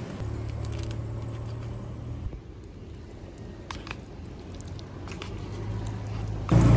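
Steady low car-cabin hum, with soft squelching and a few light clicks as a plastic fork stirs and twirls sauced spaghetti in a paper bowl. Near the end the hum turns abruptly much louder.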